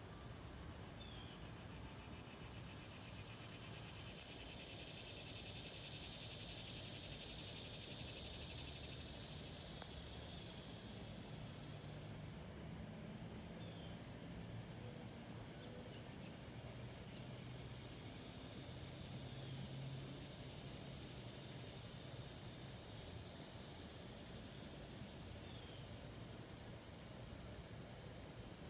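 A steady high insect trill, with short chirps repeating about twice a second over it. Underneath is a faint low rumble from a jet airliner passing high overhead, swelling a little midway.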